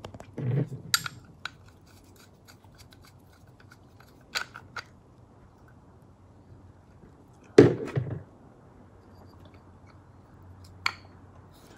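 Scattered sharp clicks and light knocks of hand tools and metal parts as a Model A Ford horn motor is being put back together, the loudest knock coming a little past halfway.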